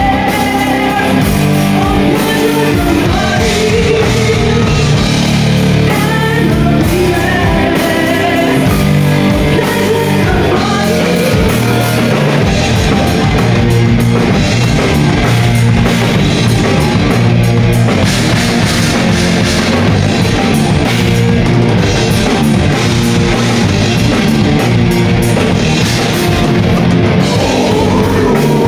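Live heavy metal band playing loud and steady: distorted electric guitars, bass and a drum kit, with a woman singing over them for the first part.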